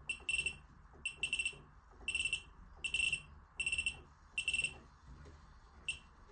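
A series of short, high-pitched alarm-like beeps, about eight of them, unevenly spaced and some in quick pairs.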